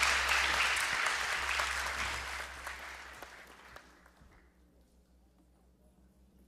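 Audience applauding, fading away over about four seconds.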